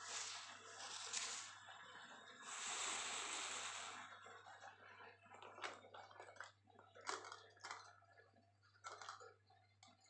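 Budgerigars nibbling and pulling at leafy greens, a rustling crunch for about the first four seconds. After that come scattered light clicks of a budgie's beak and claws on a wire cage as it climbs.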